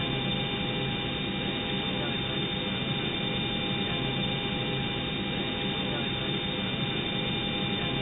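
Old magnetic-tape cockpit voice recorder background noise: a steady hiss over a low hum, with a few faint, steady whistle-like tones and no voices.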